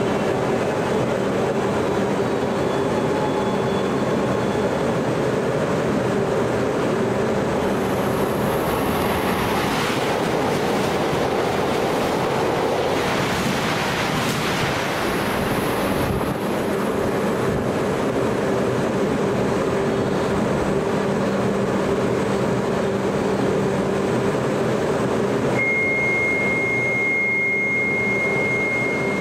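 E5 series Shinkansen running noise heard inside the passenger cabin: a steady rumble and rush of wheels and air. It swells for several seconds in the middle, and a steady high tone comes in near the end.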